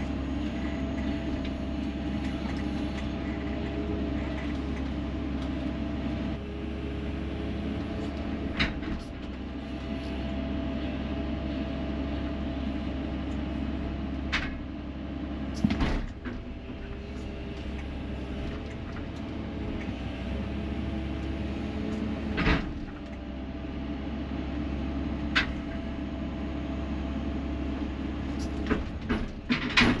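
Hydraulic excavator's diesel engine running steadily under load, heard from inside its cab, while the boom and bucket lift a bogged D11 bulldozer. Several sharp knocks break in along the way.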